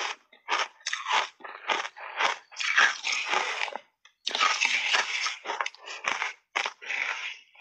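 Shaved ice dusted with matcha and milk powder crunched and chewed in big mouthfuls: a quick run of sharp crunches with two longer stretches of grinding crunch.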